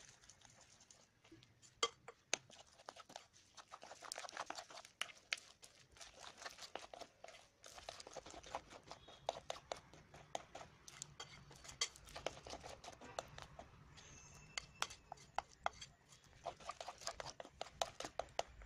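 A spoon stirring thick banana and flour batter in a glass bowl: frequent irregular clicks and taps of the spoon against the glass over soft wet squelching of the batter.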